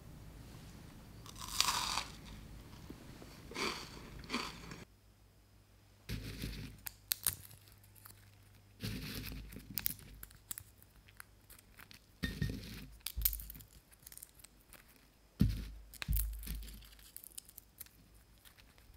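Hands rubbing and squeezing peanuts in a bowl to crack off their papery red skins: a run of separate crunches and crinkly rustles, loudest about three-quarters of the way through. For the first few seconds there is a low hum with a few short rustles.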